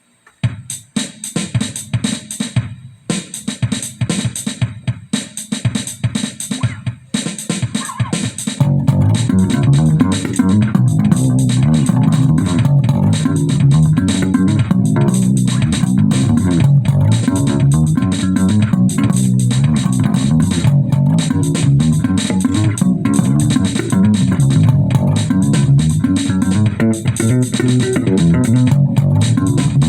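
Live band instrumental led by bass guitar with drums: about eight seconds of sparse, short hits, then a heavy, busy bass-and-guitar riff that runs on loud.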